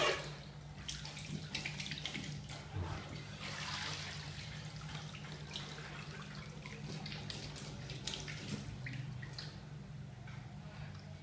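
Bathwater sloshing and splashing as a person lying in a filled tub moves about, with small drips and trickles throughout; the loudest splash comes right at the start.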